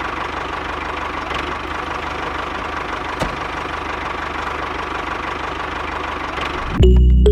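A small mini-tractor motor runs steadily with a fast, even low chugging pulse and a few faint clicks. Loud music cuts in abruptly near the end.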